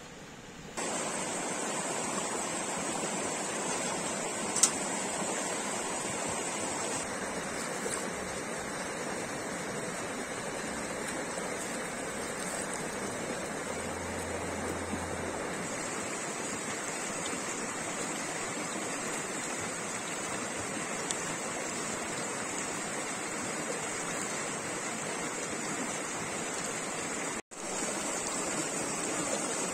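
Shallow mountain stream rushing steadily over stones, coming in about a second in. A single sharp click sounds about five seconds in, and the sound briefly cuts out near the end.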